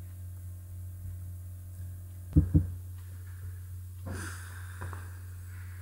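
Steady low hum under a pause in narration, with a short double bump about two and a half seconds in and a breath about four seconds in.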